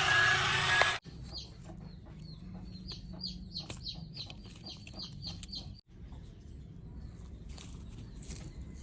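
Bird calls: a quick run of short high chirps, several a second, for a few seconds, over faint outdoor background with a few sharp ticks. The first second is a louder stretch with a repeating beep, which cuts off abruptly.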